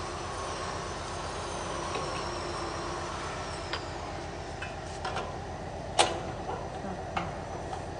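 Socket wrench clicking and clanking against the bolts as the screws holding a bearing on a jute cutting machine are tightened, over a steady machine hum. The loudest clank comes about six seconds in, with a few lighter clicks around it.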